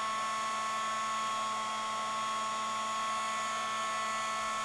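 Handheld craft heat tool running steadily: a small fan motor's constant whine over the hiss of blown air.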